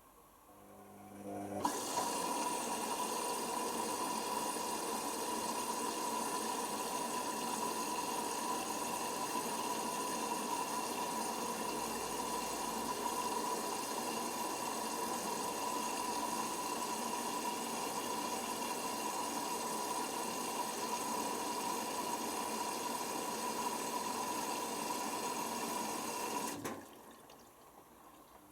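Hoover Nextra HNWL7146 washer dryer filling with water: the inlet valve opens about two seconds in and water rushes in with a steady hiss and a whistling tone, then cuts off abruptly near the end.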